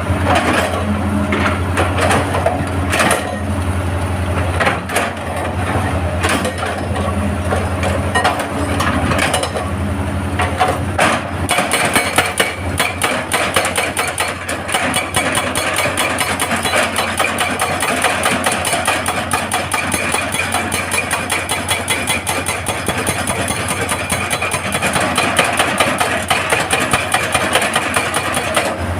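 Heavy excavator diesel engine running, with scattered knocks of rock. From about twelve seconds in, a hydraulic breaker hammers rock in a rapid, steady stream of blows.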